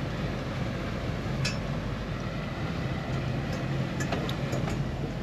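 Twin outboard motors running at slow idle speed, a steady low hum, with a single light click about a second and a half in.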